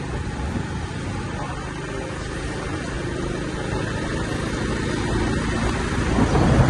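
Steady engine and road noise from a motorbike riding along a paved street, a low rumble that grows a little louder near the end.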